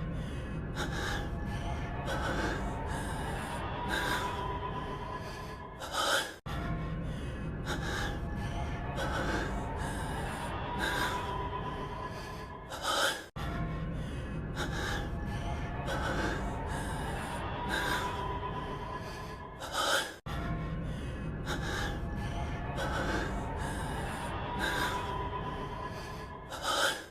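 A man's heavy breathing with sharp gasping breaths over background music. The same roughly seven-second clip loops about four times, with a brief dropout each time it restarts.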